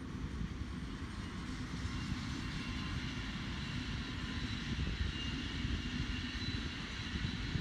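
SBB passenger train hauled by an Re 460 electric locomotive passing by, a steady rumble of wheels on rails with a faint high whine above it.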